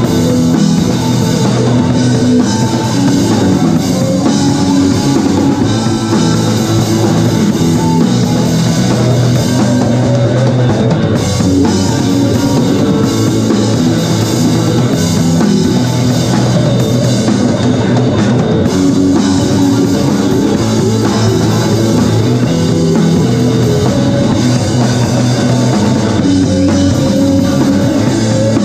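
Live rock band playing at full volume: a drum kit driving a steady beat under electric guitars.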